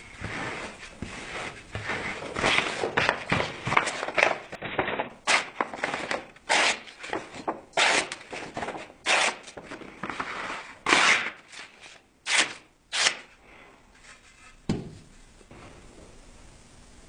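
Repeated rough scraping strokes of hand abrasive work on the steel knife blade. The strokes are uneven and come about one or two a second, thin out and stop about 13 seconds in, followed by a single knock.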